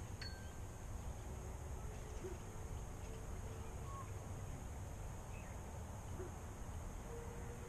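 Outdoor ambience: a steady low rumble with a faint high hiss, a few faint short chirps and one small sharp tick near the start.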